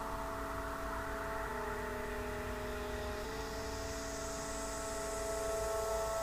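Background music: sustained synthesizer chords that change every couple of seconds over a low hum.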